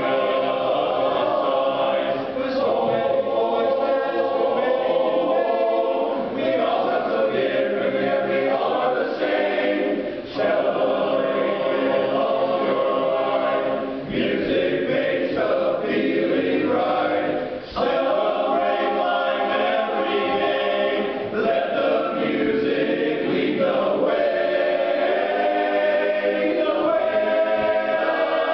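Men's barbershop chorus singing a cappella in close four-part harmony, with short breaks between phrases about ten seconds in and again a little past halfway.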